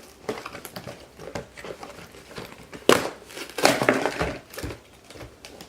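Toy box packaging being opened and handled by hand: irregular crinkling and rustling, with a sharp snap about three seconds in.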